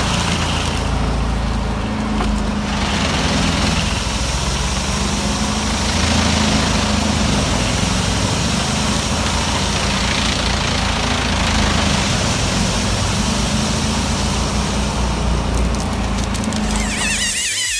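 Whole-tree wood chipper running: a steady engine drone under the noisy rush of a tree being fed through and chipped.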